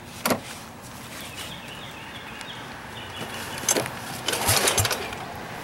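A Simplicity 4208 garden tractor's vertical-shaft engine being pull-started: about four seconds in a recoil starter rope is yanked, rattling, with a couple of low chugs as the engine turns over without catching.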